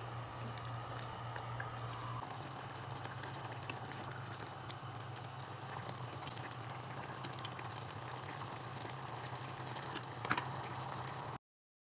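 Creamy chicken pie filling simmering in a stainless steel pot on a gas burner, over a steady low hum, with a few light clicks of a ladle against the pot, the sharpest about ten seconds in. The sound cuts off suddenly just before the end.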